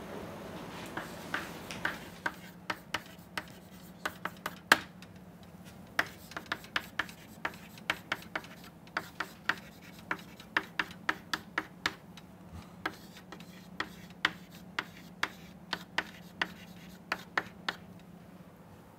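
Chalk writing on a chalkboard: a long run of sharp, irregular taps and short scratches, several a second, as figures and letters are written. A low steady hum runs beneath.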